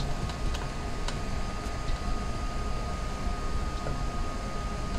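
A steady machine hum with a constant high whine, and a few faint metallic ticks from a hex key working the screws on the printer's bed frame.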